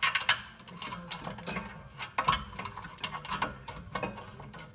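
Irregular clicks and clatter of hand tools on a rear brake caliper, from the piston wind-back tool that has just pushed the caliper piston back in.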